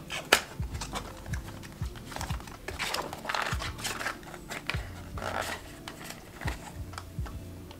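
Small paperboard cube box being handled and opened, its card flaps unfolding and rustling, with scattered light clicks and taps.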